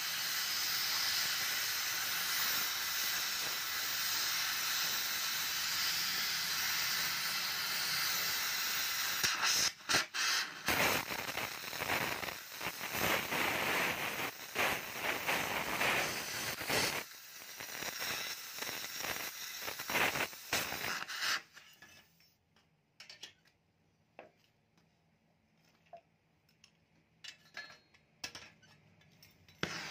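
Gas cutting torch hissing steadily as it cuts through the steel of a perforated exhaust baffle tube, throwing sparks. Past about nine seconds the hiss turns choppy and on-and-off, then stops about two-thirds of the way through, leaving only a few small clicks.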